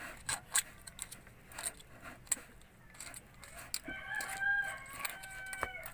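A rooster crowing, one long stepped call starting about four seconds in, over scattered sharp metallic clicks of hand tools.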